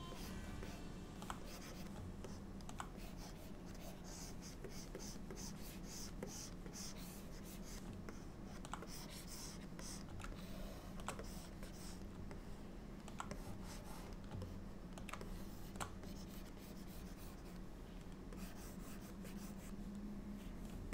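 Scattered light clicks and scratchy strokes from hands working a computer's input devices, over a steady low hum.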